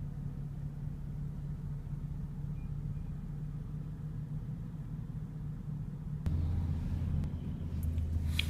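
Low, steady hum of a BMW 435i's turbocharged 3.0-litre inline-six idling, heard from inside the cabin. A deeper hum joins about six seconds in.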